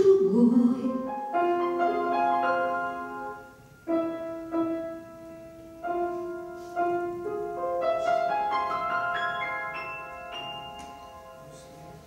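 Grand piano playing the closing postlude of a Russian romance: sustained chords, then rising arpeggios that die away near the end. A woman's sung final note ends in the first second.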